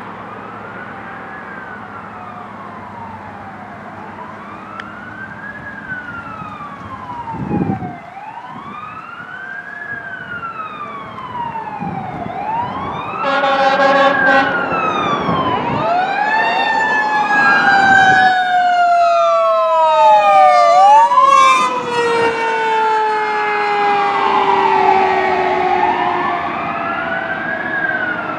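Fire engine siren on a slow wail, rising and falling about every three to four seconds and growing louder as it approaches. About halfway through there is a short horn blast. After that a second siren overlaps it, along with a lower tone that slides slowly down in pitch.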